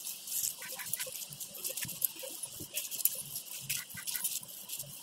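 Hand kneading freshly drained chhena (paneer curds) on a steel plate: soft, wet squishing with irregular small smacks and clicks as the palm presses and drags the curd across the metal.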